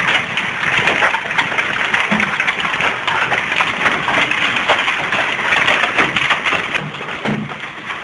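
Large hailstones falling hard on a roof and a yard, a dense, continuous clatter of countless small impacts.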